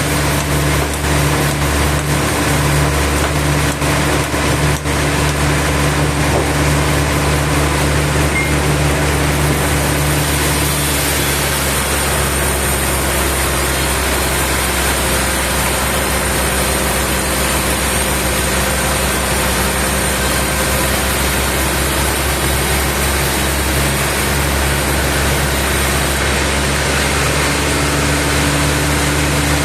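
Sawmill machinery running with a steady engine-like drone. From about ten seconds in until near the end, a harsher, hissing noise joins it.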